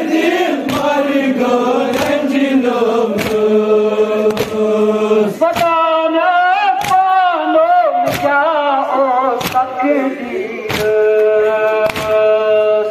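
Male mourners singing a Muharram lament together in a sustained, chant-like line, with regular sharp slaps of hands striking chests (matam) keeping time, a little over one beat a second.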